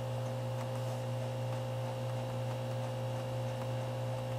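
Steady low electrical hum with a buzzy pitched tone, unchanging throughout, with a few faint light ticks.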